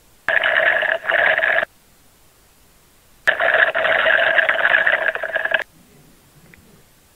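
Slurping, gulping drinking sounds in three bursts: two short ones about a second in, then a longer one from about three seconds to near the end.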